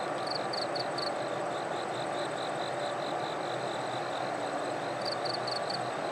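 Steady hum of a standing ED76 electric locomotive's running equipment, with insects chirping in an even high pulse of about four to five a second, and two short runs of four louder chirps near the start and about five seconds in.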